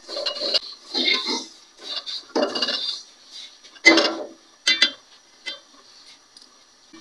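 Metal spatula scraping and stirring grated coconut around a steel pan as it is lightly fried: a series of short scrapes, about a second apart.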